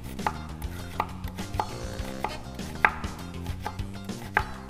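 Kitchen knife chopping onions on a wooden cutting board: a run of sharp, unevenly spaced cuts, about one or two a second, with one louder strike near the middle.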